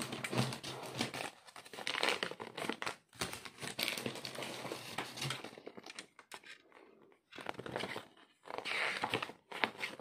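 Plastic mailer bag and paper slips being handled: crinkling and rustling in irregular bursts, with a quieter stretch about two-thirds of the way through before more rustling.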